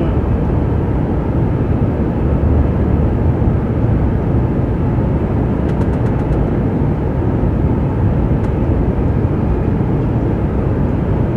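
Steady running noise of an H5 series Shinkansen heard from inside the passenger cabin: a loud, even rumble with no change in pitch.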